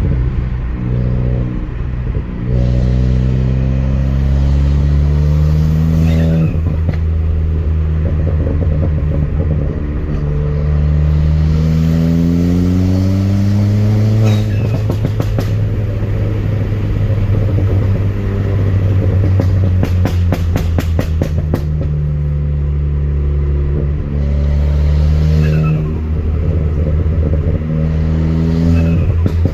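Ford Fiesta ST's 1.6-litre turbocharged four-cylinder engine pulling up through the revs three times under light throttle. Each pull cuts off on lift-off into turbo flutter, a rapid chattering of the compressor.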